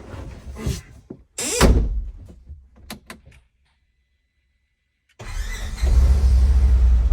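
A few clicks and a heavy thump, then a short gap of silence, then a Polaris Ranger XP 1000 side-by-side's engine running with a steady low drone that grows louder about a second after it comes in.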